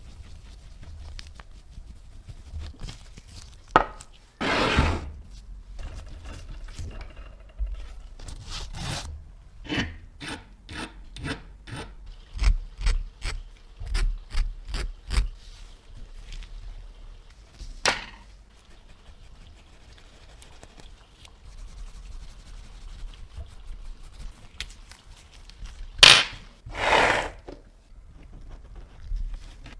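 Hand rubbing and scraping strokes, as in sanding or filing a part by hand. There are a few scattered strokes, then a run of quick short ones, then two louder, longer strokes near the end.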